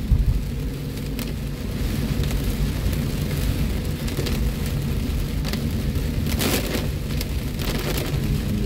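Heavy rain falling on a car's roof and windshield, heard from inside the moving car over the low rumble of the engine and tyres on a wet road. A short, louder swish comes about six and a half seconds in.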